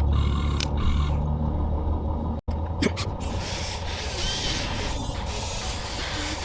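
Radio-controlled Huina excavators running: the electric motors and metal gearing hum and whir while the machines scrape and rub through loose material. The sound drops out for an instant about two and a half seconds in.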